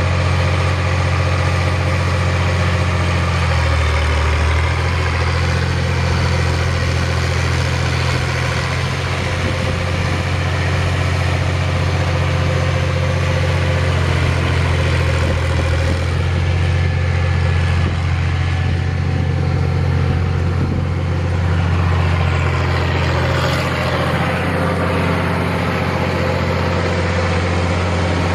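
International D436 diesel engine of a 1976 International 986 tractor running through a straight-pipe exhaust as the tractor is driven, a steady low drone with small changes in engine speed.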